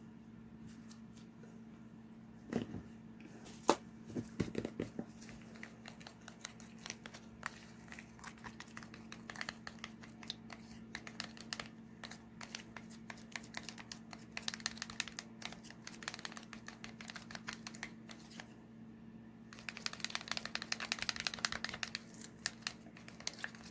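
Wooden craft stick stirring thick acrylic pouring medium into wetted pigment in a small plastic cup, scraping and clicking against the cup's walls in quick bursts that are busiest near the end. A few sharp knocks come about three to five seconds in, over a steady low hum.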